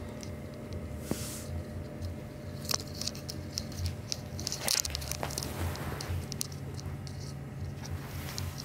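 Kittens moving over cloth and carpet right at the microphone: scattered soft rustles and light clicks over a low steady hum.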